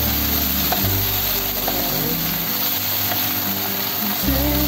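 Background music with slow, held bass notes that change a couple of times, over a steady hiss of chicken feet frying in oyster sauce in a pan.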